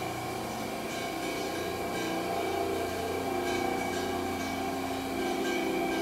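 Steady mechanical hum of a powered Haas SL-40T CNC lathe standing idle with its spindle and chuck at rest, with a few faint ticks.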